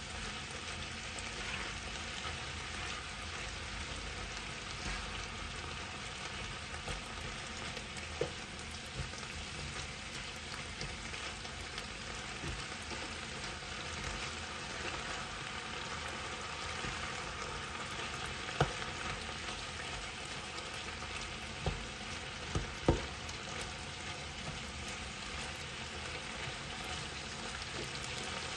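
Chunks of chicken breast sizzling as they fry in a large pan and are stirred now and then. A few sharp clicks of the utensil against the pan, mostly in the second half.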